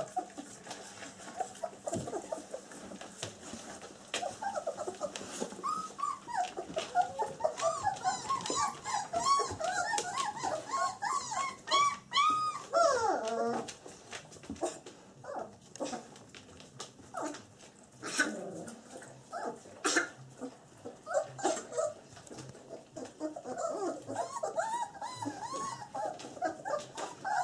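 Black German Shepherd puppies, about three weeks old, whimpering and squeaking in many short whines that bend up and down in pitch, with the odd small growl. A few sharp clicks about two-thirds of the way through.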